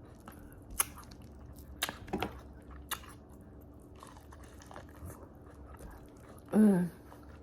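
A person chewing and biting food, with a few sharp crunchy clicks in the first three seconds and a short voiced 'mm' near the end.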